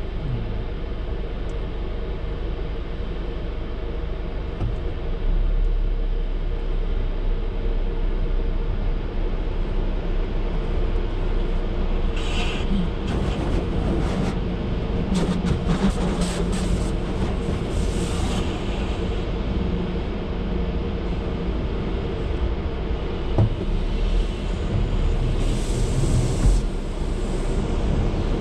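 Water spraying onto the car's windshield and body in hissing bursts, heard from inside the car cabin over a steady low rumble from the idling car and the car wash. The spray comes about 12 seconds in, again from about 15 to 19 seconds, and near the end, with a couple of light knocks.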